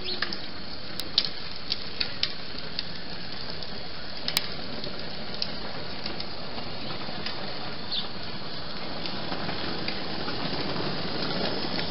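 Steady hiss of outdoor background noise picked up by a surveillance camera's microphone, with a scattered handful of short, sharp clicks and ticks.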